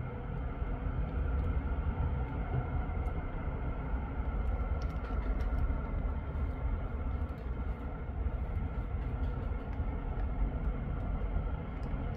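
Steady rumble of road traffic on a busy dual carriageway, with a faint steady high hum over it.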